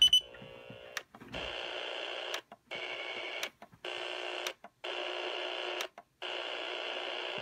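Sony Dream Machine clock radio hissing with static, untuned between stations, in stretches of about a second that cut out briefly five times as its tuning buttons are pressed. A sharp button click with a short high beep at the start.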